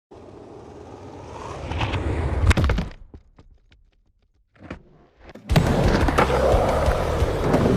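Skateboard wheels rolling on pavement, growing louder and ending in a few sharp clacks of the board about two and a half seconds in. After a short pause and a single knock, the board rolls again, loudly, from about five and a half seconds in.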